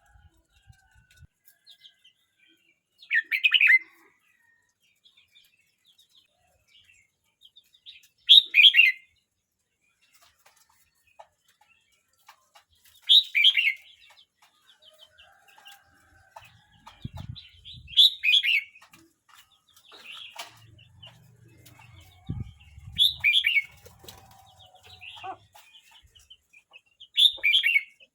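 Red-whiskered bulbul singing: six short, loud song phrases about five seconds apart, with softer chirps between them.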